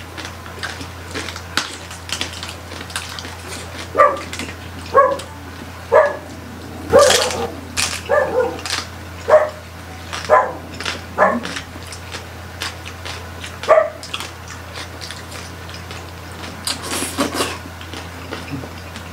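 A dog giving short yips and barks at irregular intervals, a dozen or so in all, over the sounds of people chewing.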